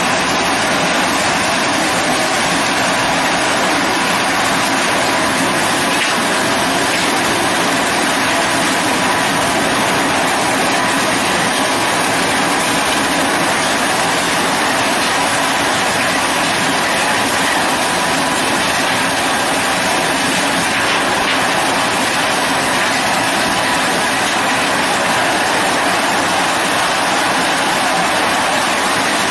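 ZZS SC1680 horizontal hammer mill running, shredding scrap steel paint buckets: a loud, steady noise of metal being crushed, without letup.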